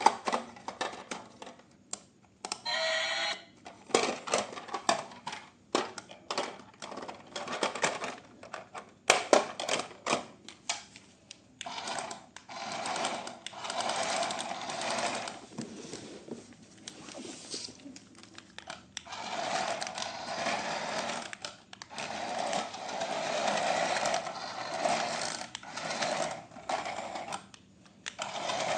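Plastic clicks and knocks of a toy being handled, with a brief tone about three seconds in, then a small electric toy motor and gears whirring in bursts of a few seconds each.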